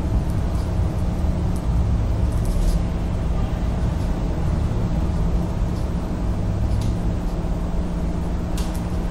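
Steady low rumble and hum of background noise, with a few faint light ticks.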